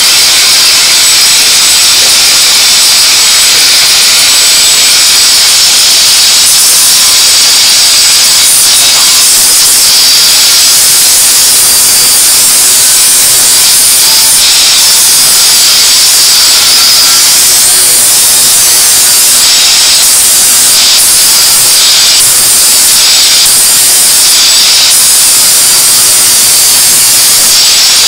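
Angle grinder grinding a workpiece clamped in a vise: a loud, steady, high hiss of the disc on the material, with brief dips in the top end every few seconds.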